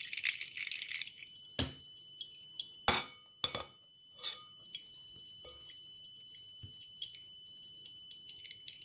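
Blended green juice trickling through a metal mesh strainer into a glass bowl, then dripping in small scattered drops. About one and a half, three and three and a half seconds in come three sharp clinks of the strainer against the glass bowl.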